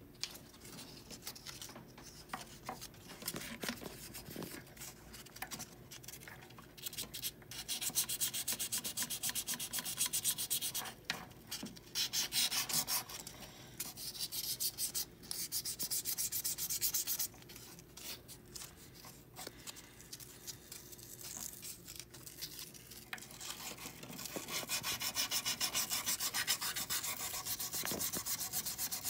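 A small hand tool rubbed quickly back and forth on a hollow 14kt gold bangle, in two long spells of fast, fine scraping strokes, one starting about a quarter of the way in and one near the end, with lighter handling between.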